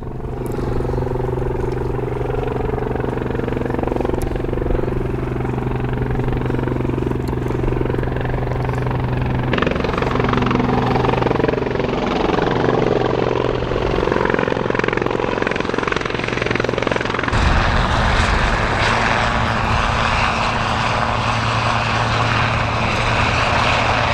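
Sikorsky S-76 twin-turbine helicopter running, its engines and rotor giving a steady drone. The tone shifts abruptly about ten seconds in and again about seventeen seconds in.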